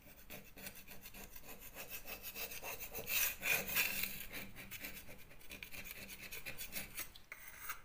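Metal scraper blade scraping crumbly plaster and old distemper off the foot of a wall in quick, repeated rasping strokes.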